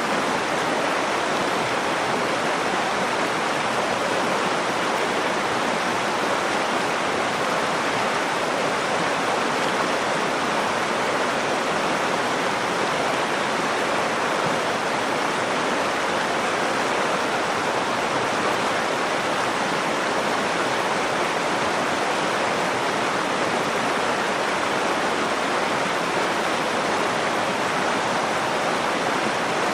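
Nakdong River water flowing in a steady, even rush.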